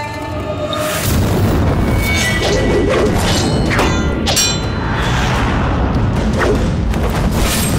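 Film-style fight sound effects over dramatic music: a rapid run of punch and kick impacts, whooshes and heavy booms.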